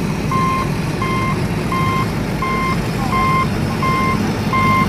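Truck reversing alarm beeping at a steady, even pace, about three beeps every two seconds, over the low rumble of a truck engine.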